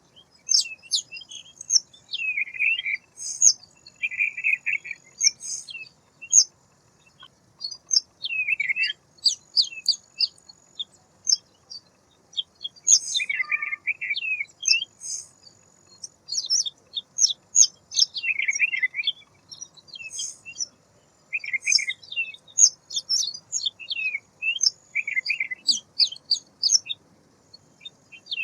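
Songbirds chirping and twittering: quick sharp calls mixed with buzzy lower notes, with a thin high whistle that recurs every second or two, broken by a couple of short pauses.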